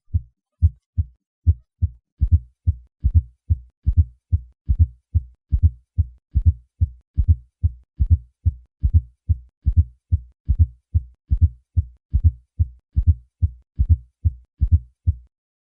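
Heart sounds heard at the cardiac apex: three normal lub-dub beats, then beats with an added low-pitched fourth heart sound (S4, atrial gallop) just before each first heart sound, in the "Ten-nes-see" rhythm. The S4 is the sign of a forceful atrial contraction against a stiff, poorly compliant left ventricle, as in hypertension. The beats stop shortly before the end.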